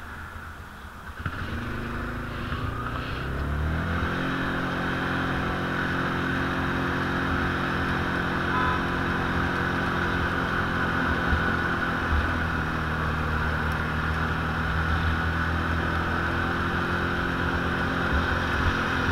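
ATV engine speeding up, its pitch climbing over the first few seconds and getting louder, then running at a steady pitch while under way.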